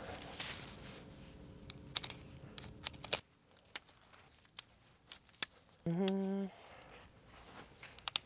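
Scattered clicks and light crinkling handling noises, with one short pitched tone lasting about half a second a little past the middle.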